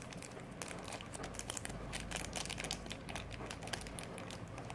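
Hands handling a smartphone's plastic parts and wrapping, with many small irregular clicks and crinkles, as the battery of a Samsung Galaxy J7 (2016) is being fitted.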